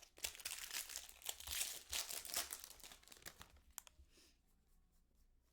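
Foil trading-card pack wrapper crinkling and tearing as it is opened, for about three seconds, followed by a few light clicks.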